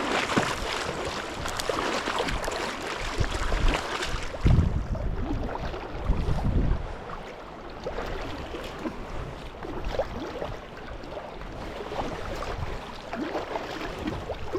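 River current rushing and splashing, with a few low thumps about four to seven seconds in.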